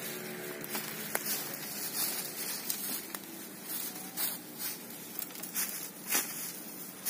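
Irregular rustling and crackling of dry leaves and brush, with scattered sharp snaps.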